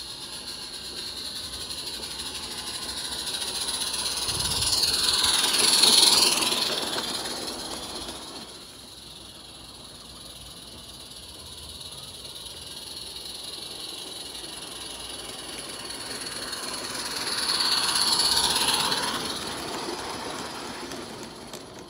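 Accucraft Baldrick model locomotive and its coaches running on garden-railway track, with a steady high motor whine and the rattle of wheels on rail. It passes close by twice, growing loud and fading each time, about six seconds in and again near the end.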